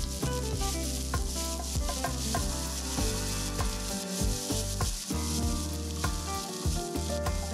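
Diced onions sizzling in hot vegetable oil in a non-stick frying pan while a silicone spatula stirs them, over background music.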